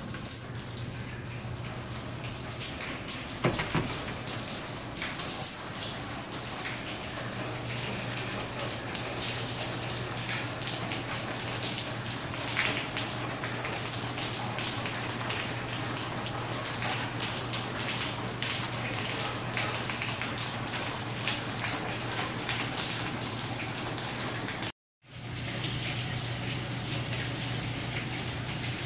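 Water leaking through the ceiling from an overflowing sink on a floor above, pattering and splashing down like rain onto lab benches and the floor, over a steady low hum. A single knock sounds about three and a half seconds in.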